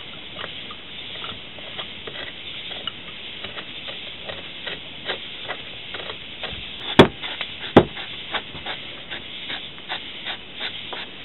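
Metal parts of a Belarus 250AS centrifugal oil filter rotor clicking and tapping as the bowl is fitted back onto its base by hand, with two sharper metal knocks a little past the middle.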